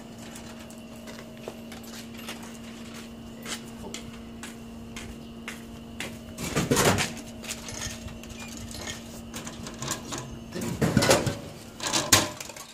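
Drink vending machine humming steadily while coins click into its slot, then, just after a button press about six and a half seconds in, a loud clatter as a can of coffee drops into the dispensing tray. A second clatter around eleven seconds in as the can is pulled out through the tray's flap.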